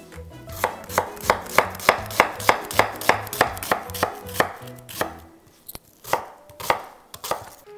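Chef's knife chopping a red onion on a wooden cutting board: a steady run of sharp knocks on the board, about three a second, then slower, uneven cuts with a brief pause after about five seconds.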